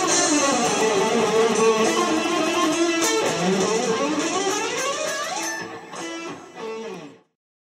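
Background music led by guitar, with sliding runs of notes. It thins out, then stops abruptly about seven seconds in.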